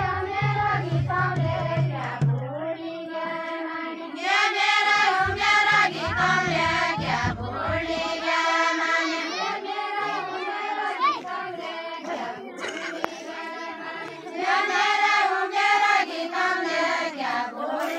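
Women singing a deuda folk song together without instruments, a group chorus in long sung phrases. Loud stretches of singing alternate with fainter ones, as the two sides of women answer each other in turn.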